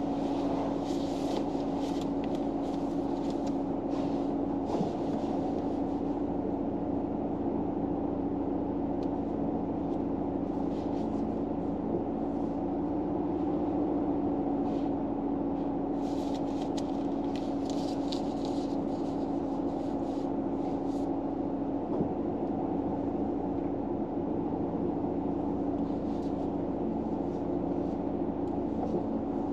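Steady hum with a constant low tone heard inside a car, with faint scattered crackles or rustles now and then.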